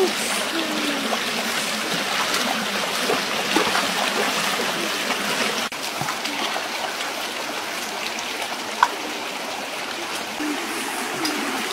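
Shallow rocky stream running steadily over stones, an even rush and trickle of water, with one sharp click about nine seconds in.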